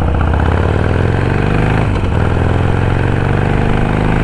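Harley-Davidson Sportster's V-twin engine running steadily as the motorcycle rides along, heard from the rider's seat, with a brief break in the engine note about two seconds in.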